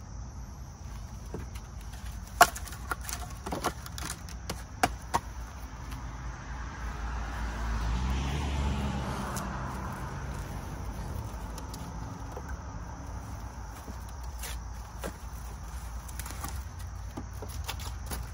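Split firewood pieces knocking together as they are stacked into a wooden bundling rack: a handful of sharp clacks in the first five seconds. Near the middle, a low rushing sound swells and fades.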